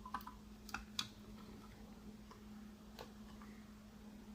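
Small clicks from handling a 1:50 scale die-cast model truck and low loader, its kingpin being pushed into the tractor's fifth wheel: a few light clicks in the first second and one more about three seconds in, over a steady low hum.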